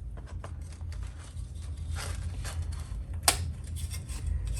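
Scattered small clicks and taps of jukebox control-panel parts being handled and pried off, with one sharper click about three seconds in, over a steady low hum.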